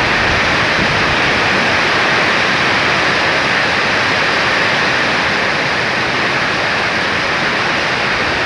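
Heavy rain pouring down in strong wind: a loud, steady, dense hiss that never lets up.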